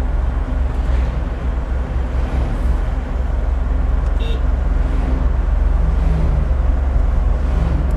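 Force Gurkha Extreme's 2.2-litre common-rail diesel accelerating hard under full throttle, heard from inside the cabin as a steady low drone that grows a little louder after about three seconds. A brief horn toot sounds about four seconds in.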